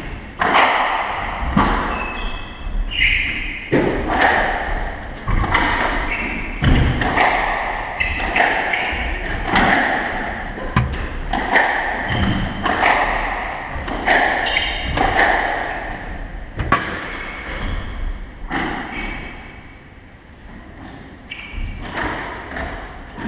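A squash rally: the ball struck by rackets and thudding off the front wall and sides of the court, about one hit a second, each with a short echo in the court, along with brief squeaks of shoes on the wooden floor. The hits thin out and the rally ends in the last few seconds.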